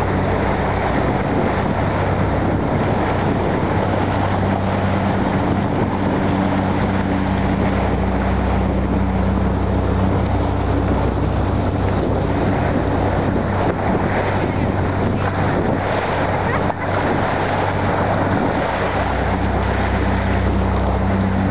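A boat's motor running steadily with a low hum, under a constant rush of water along the hull and wind buffeting the microphone.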